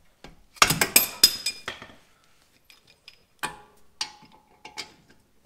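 Hammer blows on a car's brake disc: a quick run of sharp, ringing metal strikes about half a second in, then three more spaced strikes in the second half.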